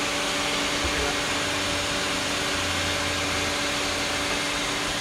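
Steady machinery whirr: fan-type hiss with several constant hum tones underneath, holding level throughout.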